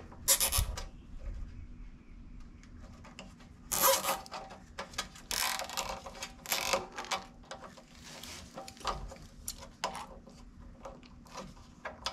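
Nylon zip ties being drawn through their locks around a small plastic hour meter, in a series of short ratcheting rasps with clicks of handling between them; the loudest rasp comes about four seconds in.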